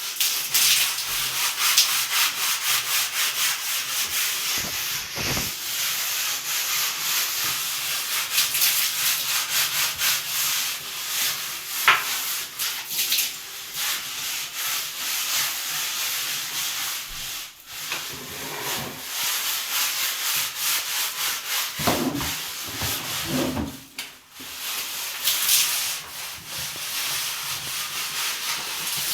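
Stiff brush scrubbing a hard surface in quick, continuous back-and-forth strokes, with brief pauses twice.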